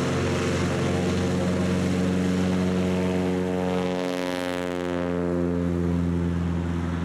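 Cessna 182's piston engine and propeller at full takeoff power during a ground roll on a gravel bar. It is a steady, many-toned engine drone, with a rush of propeller hiss and a slight drop in pitch as the plane passes close by about four seconds in.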